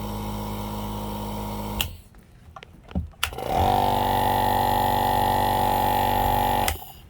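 Two nebulizer air compressors run one after the other for a noise comparison, each a steady motor hum. The first is switched off with a click a little under two seconds in. After a short pause, the second is switched on with a click and runs louder and higher in tone for about three and a half seconds before it stops.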